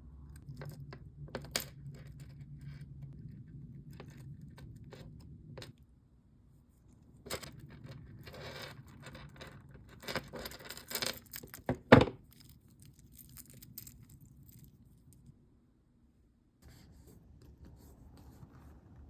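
Small metal bag-charm hardware jingling and clicking as it is handled, with light rustling; the handling is busiest in the middle and ends with one loud sharp click about twelve seconds in.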